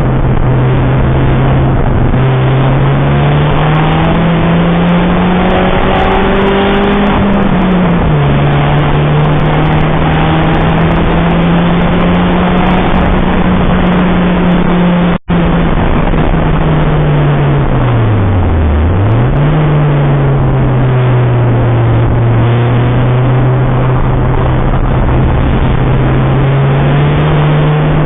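Citroën Saxo VTR's 1.6-litre four-cylinder engine pulling hard, its note climbing and falling as the gears and revs change, with a sharp fall and recovery in revs past the middle. A steady rushing of wind and road noise sits under it throughout, and the sound cuts out for an instant about halfway.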